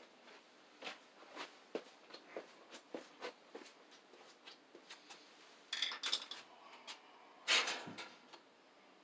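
Light clicks and knocks at roughly half-second intervals, then louder clattering of things being handled about six seconds in, and the loudest clatter about seven and a half seconds in.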